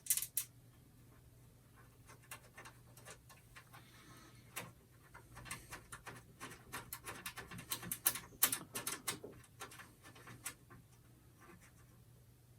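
Irregular light clicks and small metallic taps and scrapes of a screwdriver and screws being worked inside a PC case, busiest in the middle.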